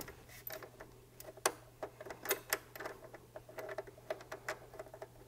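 Irregular small metallic clicks and taps as a factory nut is handled and started onto a bolt through a muffler clamp bracket. A few sharper metal knocks ring briefly, the loudest about a second and a half in and again around two and a half seconds.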